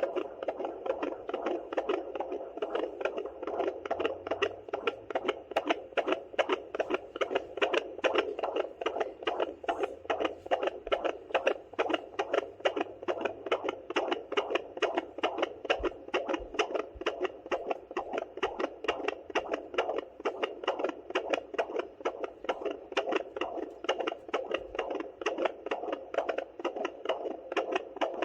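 Fetal heartbeat at 32 weeks, heard through a handheld fetal Doppler's speaker: a fast, even pulsing of a little over two beats a second.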